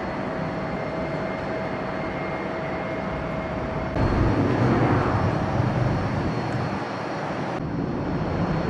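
Steady airport background noise: a broad hum and low rumble with a faint steady tone. It steps up louder, with more rumble, about four seconds in.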